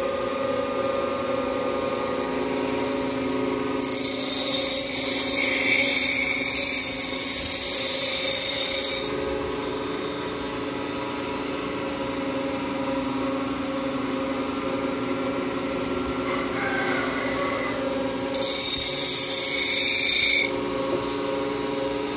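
Queen City 12-inch pedestal grinder running with a steady motor hum, while a steel rebar is pressed into its 36-grit stone wheel twice. There is a loud, hissing grind for about five seconds starting around four seconds in, and a shorter one of about two seconds near the end.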